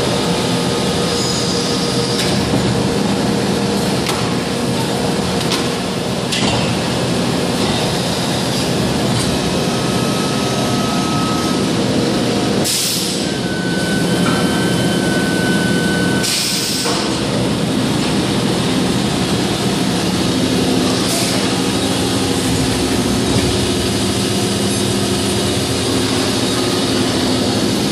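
Van Dorn 250-ton plastic injection moulding machine running a production cycle with a steady mechanical hum. About 13 and 16.5 seconds in come two short bursts of hiss.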